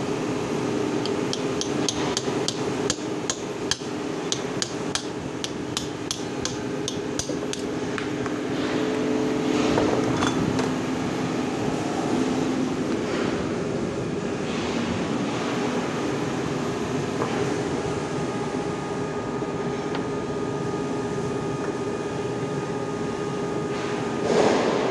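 A quick run of about twenty hammer taps on metal, about three a second, in the first seven seconds or so, over the steady hum of workshop machinery. A louder burst of noise comes near the end.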